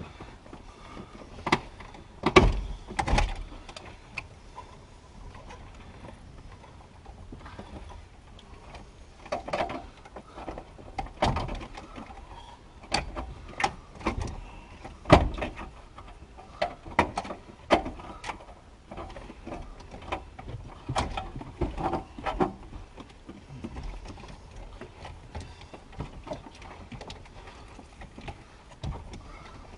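Irregular clicks, knocks and clatter of hand tools and dash parts as mechanics work under a Ford F-150's dashboard, with a few louder knocks, the loudest about two seconds in and again about fifteen seconds in.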